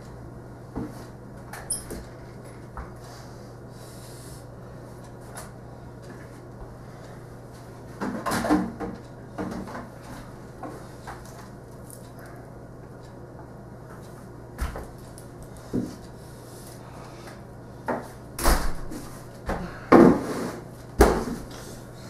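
Irregular knocks and thumps of a crutch and broom against the wooden floor and door frame as a person hops about on one leg, busiest near the middle and again near the end. A steady low hum runs underneath.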